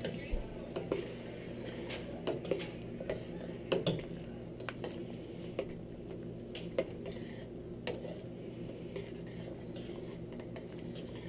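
A metal slotted spoon stirring a wet rice-and-cocoa mixture in a stainless steel pot, with irregular scrapes and clinks of metal against the pot's sides and bottom.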